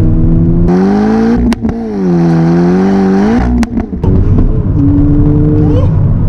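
Heard from inside the cabin, a remapped, decatted and straight-piped VW Golf MK5 GTI's 2.0 turbo four-cylinder accelerates hard through the gears: the revs climb under a loud induction and exhaust noise. There are two brief breaks with a sharp sneeze about a second and a half and three and a half seconds in, at the gear changes. It then settles to a steadier, lower note.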